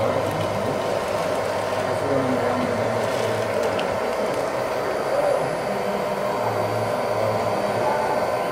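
Radio-controlled model Caterpillar 980 wheel loader's motors whirring steadily as it tips its bucket and backs away.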